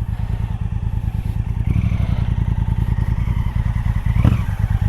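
Motorcycle engine running with an even, rapid pulsing beat, getting a little louder about two seconds in. There is a brief knock or clatter near the end.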